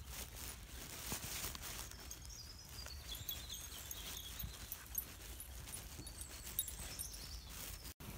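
Footsteps of a person walking across grass, with a low wind rumble on the microphone and a faint high warbling for a couple of seconds in the middle.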